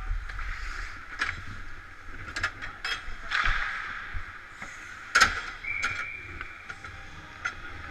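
Hockey skates and sticks clacking and knocking against the boards and bench as a player comes off the ice into the players' bench, the loudest knock about five seconds in. A short high steady tone follows right after it, under a second long.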